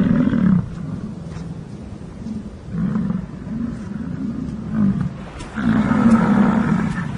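American bison bull bellowing in the rut. A long low roar comes first, then a series of shorter roars, and another long roar about a second and a half before the end.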